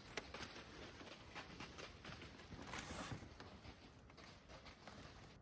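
Faint rustling with scattered soft ticks, near silence, swelling slightly around the middle.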